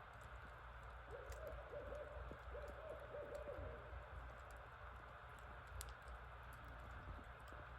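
Barred owl calling: a faint, quick series of hoots starting about a second in and lasting under three seconds, several notes sliding down at their ends. A few faint clicks sound in the background.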